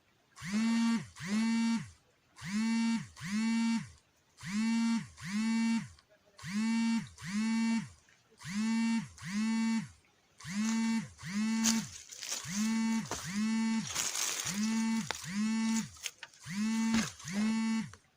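A looped pair of identical electronic tones, repeating about every two seconds, with a hiss joining in during the last few seconds.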